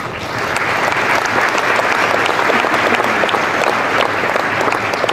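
Audience applauding: dense clapping that swells in just after the start and keeps going.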